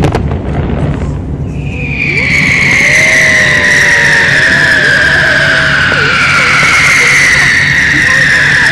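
Whistling fireworks giving off a long shrill whistle that slides slowly down in pitch, a second whistle joining past halfway, over a low steady hum and scattered crowd voices.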